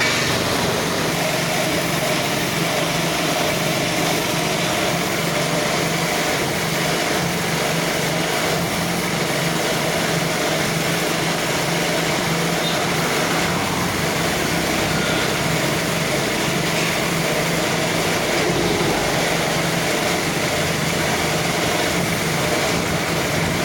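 A small engine or motor running steadily, with a constant hiss over it.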